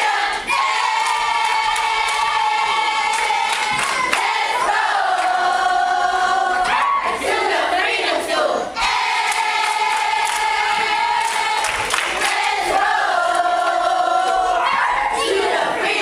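A large group of children and adults singing together, loudly, in long held notes. The sung phrase repeats about every eight seconds.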